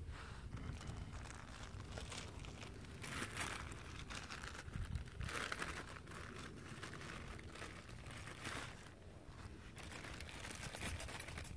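Clear plastic bag crinkling and rustling as it is handled, in several separate bouts.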